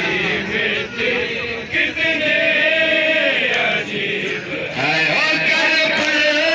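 Men's voices chanting a noha, a Muharram mourning lament, in long drawn-out sung lines.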